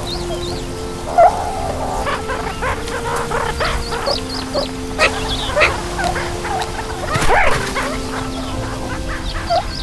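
Meerkat pups squeaking and chirping in many short, high calls, over music with long held notes.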